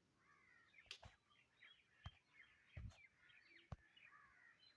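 Faint bird chirping in the background, many short calls, with a few soft clicks and low thumps.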